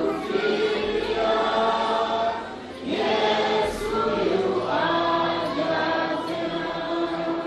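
Choir of many voices singing a hymn in sustained phrases, with a short break between phrases about three seconds in.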